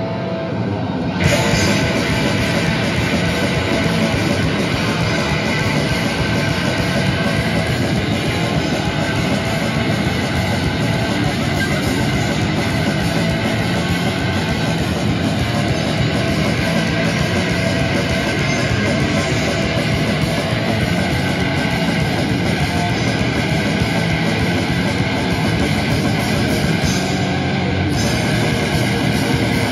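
Grindcore band playing live and loud: heavily distorted electric guitars, bass guitar and a drum kit through amplifiers. About a second in, the band kicks in harder and then keeps going without a break.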